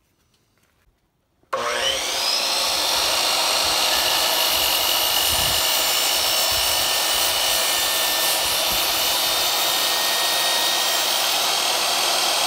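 DeWalt compound miter saw switched on about a second and a half in: its motor whine rises quickly to full speed, then runs steadily and loud as the spinning blade is brought down to cut a wooden 1x4 slat.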